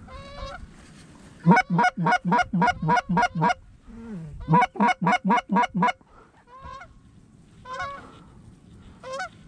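Canada geese honking: two loud, rapid runs of honks at about four a second, with fainter scattered honks before and after.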